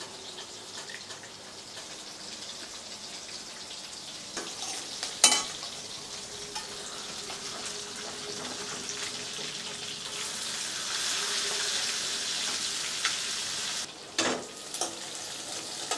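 Hot oil sizzling steadily in a pan as food fries, the sizzle growing louder past the middle. A sharp knock about five seconds in and another near the end.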